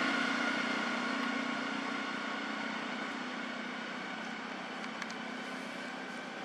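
A motor engine running with a steady drone that slowly fades away.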